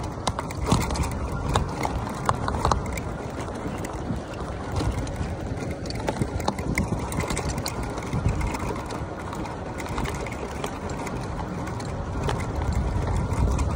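Wind buffeting the microphone over the rumble of a fat-tire electric bike being ridden, with scattered clicks and knocks from the bike and terrain.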